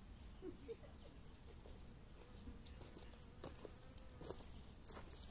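Crickets chirping faintly: a high, thin trill that comes in broken stretches, with a few faint ticks or rustles in the second half.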